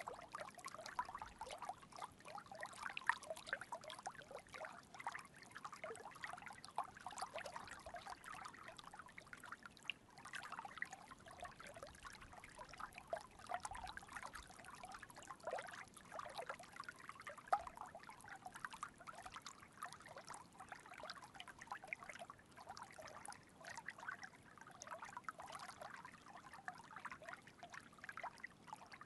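Flowing water trickling and babbling steadily, an unbroken run of small splashes and gurgles.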